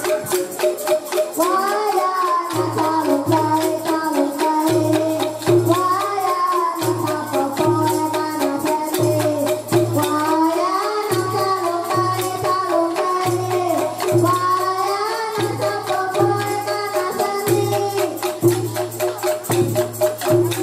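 Children's angklung ensemble playing Sundanese music: shaken bamboo angklung ringing out the melody with jingling rings, over a low bass note pulsing about once a second. A boy sings phrases over it into a microphone.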